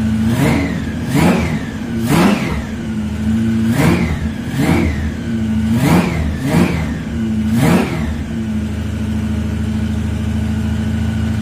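Roots-supercharged engine of a 1969 Dodge Charger idling and being blipped: about eight quick revs, each rising and falling back, then it settles to a steady idle near the end.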